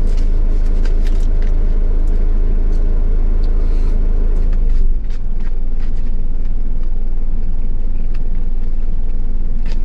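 Truck engine idling with a steady low drone. About halfway through, the note drops slightly and a hum within it fades away. Faint small clicks come and go over it.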